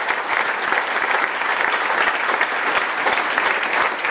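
Applause: many hands clapping steadily together.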